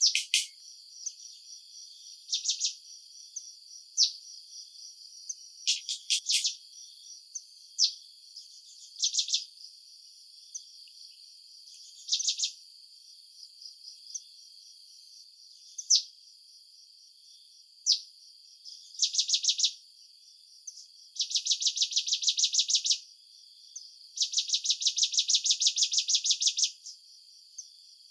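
Insects chirping: a steady high-pitched drone with repeated fast-pulsed trills, each lasting one to three seconds, coming more often and longer near the end.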